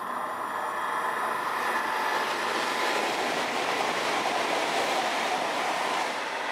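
High-speed electric train passing at speed on welded track: a rushing of wheels on rails and air that builds over the first couple of seconds, is loudest midway, and falls away about six seconds in as the last car goes by.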